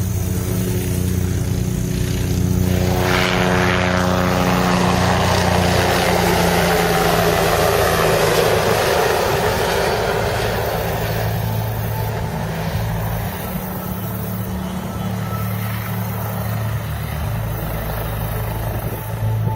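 Helicopter flying past: its rotor and engine noise swells about three seconds in, is loudest around eight seconds and fades away by about twelve seconds, over a steady low hum.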